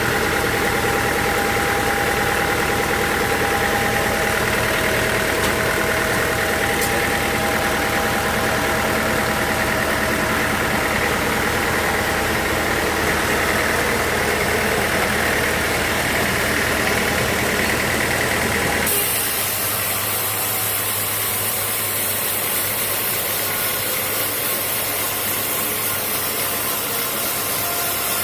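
Sawmill machinery running steadily with an engine-like drone; about two-thirds of the way through, the sound changes abruptly to a hissier mechanical noise.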